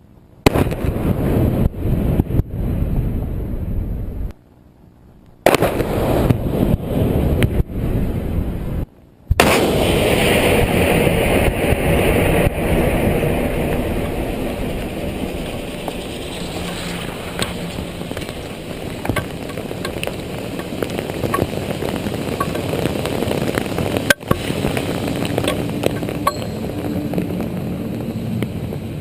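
Large explosions, one after another: sudden blasts about half a second, five and a half and nine seconds in, each followed by a deep rumble. The first two cut off abruptly. The last rumble fades slowly over some twenty seconds, with scattered crackles.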